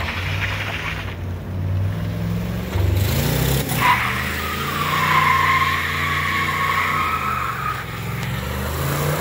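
Dodge Durango's V8 engine running hard, and about four seconds in the tires break loose into a long, steady squeal lasting some four seconds: a burnout with the SUV dropped from reverse into drive while still rolling backward.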